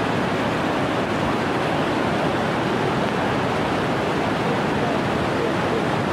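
Flash-flood torrent of muddy, stone-laden water rushing steadily over a road and across a bridge deck.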